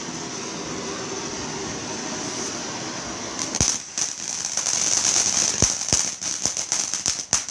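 A fountain firework spraying with a steady hiss, breaking into rapid sharp crackling pops about three and a half seconds in.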